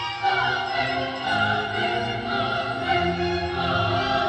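Film score of orchestral music with operatic choral singing: held, wavering voices over strings and a low bass line.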